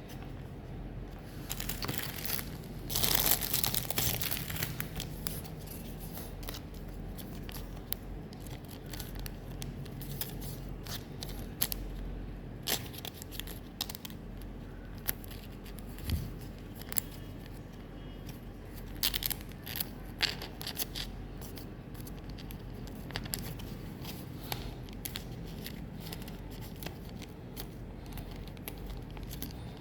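Pokémon trading card booster packs being opened and handled: foil wrappers crinkling and tearing, with scattered short clicks and scrapes of cards; the loudest rustle comes about three seconds in.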